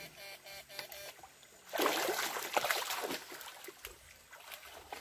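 Water splashing and sloshing in a shallow stream pool as electrofishing probes are worked in the water, loudest for about a second and a half near the middle, with smaller splashes after.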